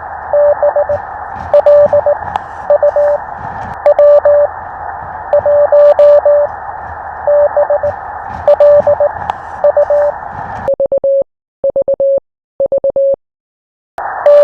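Morse code (CW) from an amateur radio receiver: a keyed tone of about 600 Hz sends dots and dashes over steady band hiss. About ten seconds in, the hiss cuts out and a few clean groups of tone follow, then a short silence before the hissy signal returns.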